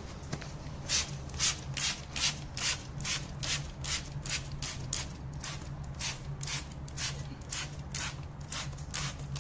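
Alta 500 chemical-resistant trigger spray bottle being pumped over and over. Each pull gives a short hissing spray, about two to three a second, misting liquid onto an alloy wheel over a steady low hum.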